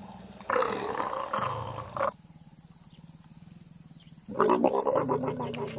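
Mating leopards growling in two loud bouts, about half a second in and again just after four seconds; the second bout is a quick series of short growls.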